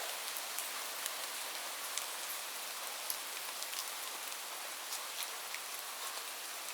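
Steady rain: an even hiss with scattered sharp ticks of individual drops striking a surface, several each second.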